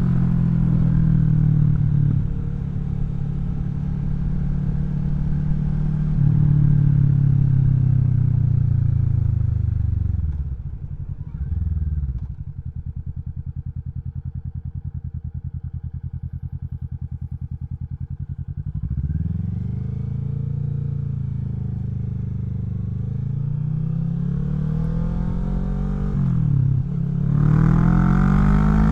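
Kawasaki Vulcan 650 S parallel-twin engine through a CS Racing aftermarket exhaust, under way and revving up and easing off. About halfway through it drops to a low, even idle for several seconds. It then pulls away again, with quick rises and falls near the end.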